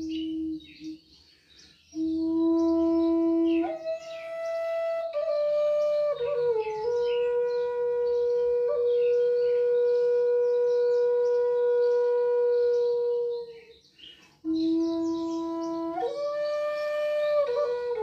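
Native American style wooden flute playing a slow melody of long held notes: a low note, a leap up, then one note held for about seven seconds. It breaks off for breath about a second in and again near the end.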